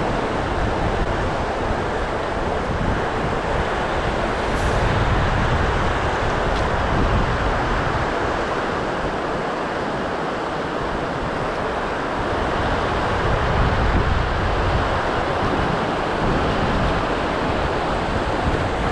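Steady rush of white water from the Scavaig River's falls tumbling over rock slabs into the sea loch, with wind buffeting the microphone as a low, uneven rumble.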